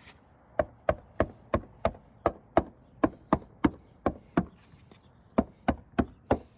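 Knocking on the 2018 Mitsubishi Mirage's back hatch, its hollow panel now filled with spray foam and sound deadening, about three knocks a second with a short pause in the middle. Each knock is short, dead and dense with no echo, the sign that the foam has deadened the panel's resonance.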